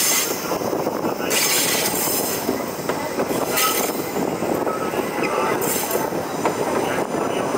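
A train rolling along the rails: a steady rumble of wheels on track, with a hissing rush that swells briefly a few times and faint brief wheel squeal.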